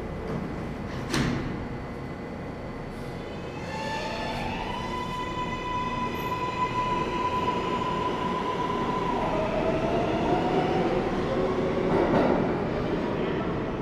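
A mechanical whine over a steady rumble, with a sharp click about a second in. The whine rises in pitch about four seconds in, holds steady, then drops lower.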